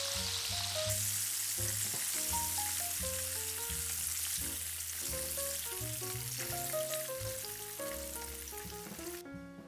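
Chicken wings deep-frying in hot oil, a dense steady sizzle, over light background music with a simple melody and bass. The sizzle stops shortly before the end.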